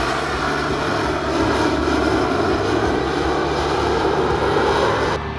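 AV-8B Harrier II's Rolls-Royce Pegasus turbofan at hover thrust: a loud, steady jet rush that cuts off suddenly about five seconds in.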